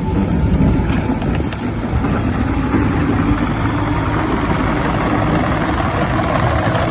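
Diesel engine of a JCB 86C midi excavator running steadily.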